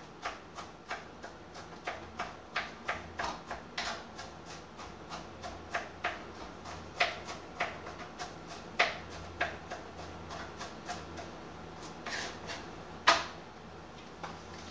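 Irregular light clicks and knocks, a few a second, from things being handled at a kitchen counter, with one sharper knock near the end over a faint steady hum.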